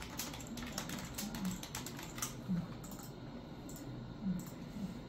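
Computer keyboard typing: a quick run of keystrokes for about two seconds, then a few scattered key clicks.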